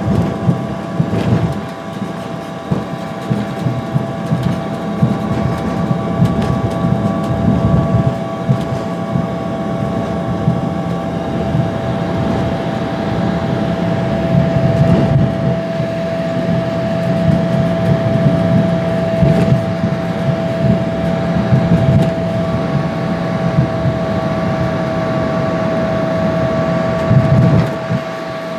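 Cabin noise of an Embraer ERJ 145 taxiing at low power: a steady whine from its rear-mounted Rolls-Royce AE 3007 turbofans over an uneven rumble from the wheels and airframe. A higher whine fades out about eleven seconds in and returns about twenty-two seconds in.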